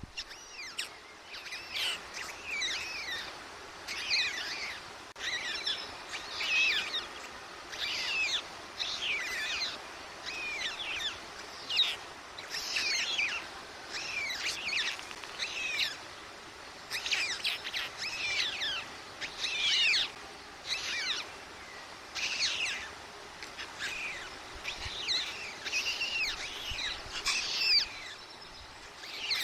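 Small birds chirping: short clusters of quick, high, falling chirps repeated about once a second.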